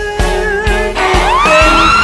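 Background pop song with a steady drum beat and a singing voice; about a second in, a high note slides up and is held.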